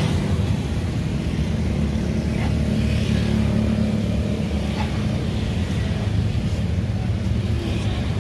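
A steady low motor hum, engine-like, with a few faint light clicks over it.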